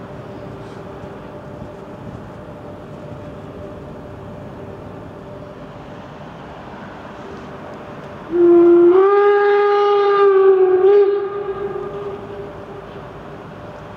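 Steam whistle of the express steam locomotive 03 1010, giving the departure signal: one long blast of a bit under three seconds, starting slightly low and stepping up in pitch, with a brief wobble just before it is shut off. It echoes away over a steady background hum.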